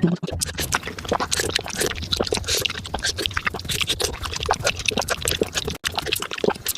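Close-miked eating sounds of fresh fruit being bitten and chewed, sped up: a rapid, dense stream of crunches and wet clicks.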